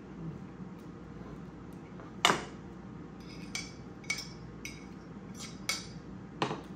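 A metal fork clinking against ceramic dishes while food is scraped from a small plate into a bowl. One sharp clink comes a couple of seconds in, then a run of lighter, ringing clinks about every half second.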